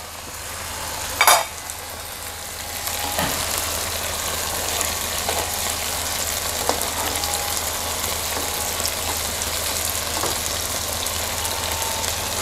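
Chicken breast with garlic, onion and chilli frying in butter and freshly added sauce in a nonstick pan: a steady sizzle that grows louder about three seconds in. A sharp tap about a second in and a few light scrapes come from a wooden spatula against the pan.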